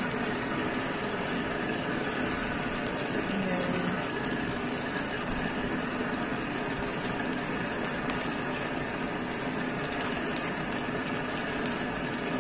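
Cooking oil sizzling steadily in a wok as it heats on an induction cooktop, with a few faint crackles.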